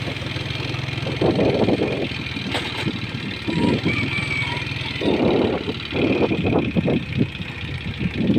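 A vehicle engine running while driving, a steady low hum at first, then uneven louder surges from about a second in.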